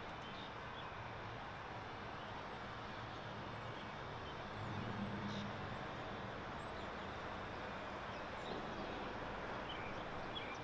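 Faint outdoor neighbourhood ambience: a steady background hiss with a low hum of distant traffic that swells slightly about halfway through, and a few faint high chirps.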